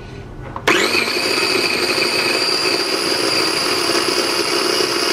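Food processor switched on under a second in, its motor spinning up quickly and then running steadily with a whine as the blade chops slices of bread into breadcrumbs.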